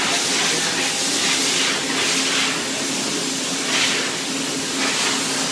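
Mazak H1250 horizontal machining center's spindle running steadily in its second gear range: a constant hum under a loud, even hiss.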